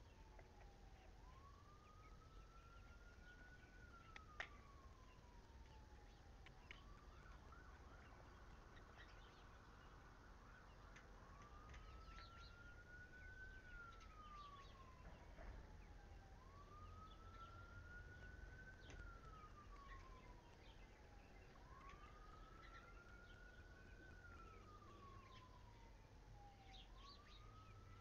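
A faint siren wailing: one tone slowly rising and falling, each cycle about five seconds long, with scattered faint high ticks around it.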